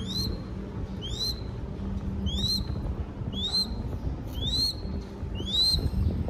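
Baby crested goshawk chick calling: a short, high, upward-sweeping call repeated about once a second, about six times, typical of a hungry chick begging for food. A low background rumble runs underneath.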